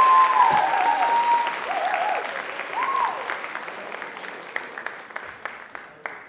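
Audience applauding, with several whoops and cheers over the clapping in the first few seconds; the applause then thins to scattered claps and dies away near the end.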